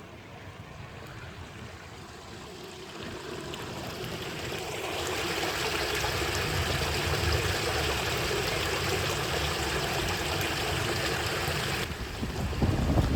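Stream water running, swelling about five seconds in to a steady rush. Near the end it cuts off abruptly and gives way to a louder, low rumbling noise.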